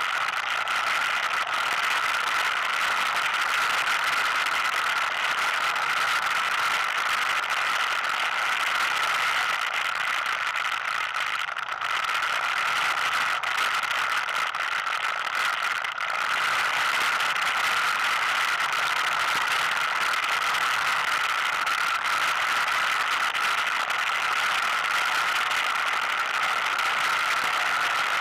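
ATV running steadily as it drives over a rough gravel dirt trail, engine noise mixed with rattling of the machine, dipping briefly twice about midway.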